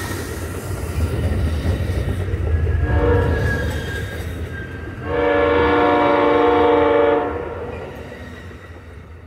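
Amtrak passenger train rumbling past on the rails, then the lead GE P42DC locomotive's multi-chime air horn sounding a chord: a shorter, quieter blast about three seconds in and a long, loud blast from about five to seven seconds in. The rail rumble fades as the train moves away.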